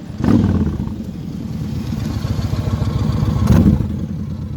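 Motorcycle engine running, with two sharp rises in revs, one near the start and one near the end.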